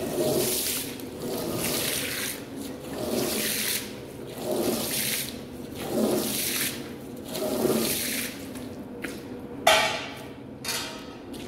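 A long-handled brush scrubbing a wet, soapy rug pile in even back-and-forth strokes, a wet swish about every second and a half. Near the end the strokes stop, and a sharp squeak stands out as the loudest moment.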